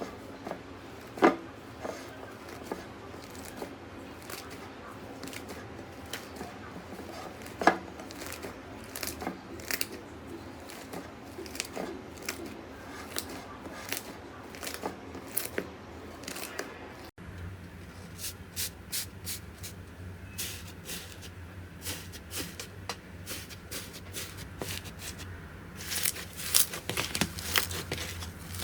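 Slime being squeezed and worked, with many sharp pops and crackling clicks; a few louder snaps stand out about a second in and about eight seconds in, and the crackling grows denser and louder near the end.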